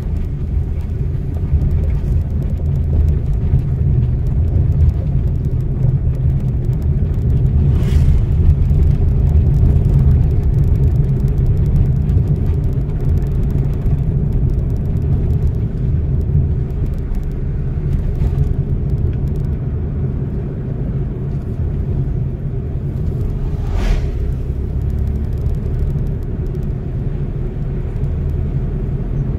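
Steady low rumble of a car driving, heard from inside its cabin, with two brief knocks about eight and twenty-four seconds in.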